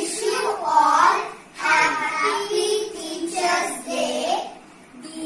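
Young girls singing a song together, in phrases with short breaths about a second and a half in and again near the end.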